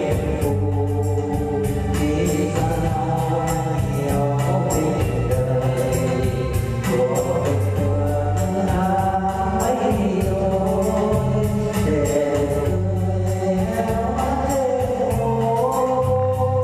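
Music: a sustained electronic organ melody with a singing voice, over a steady bass line and an even drum-machine beat.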